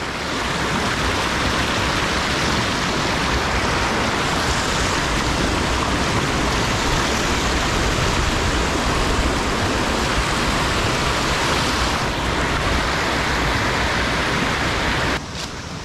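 Steady rushing of a fast, muddy river running high and pouring over boulders. It drops noticeably quieter near the end.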